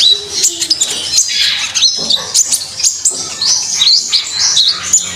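A songbird singing persistently in full voice: a fast, unbroken run of high chirps, short rising and falling whistles and sharp clicks.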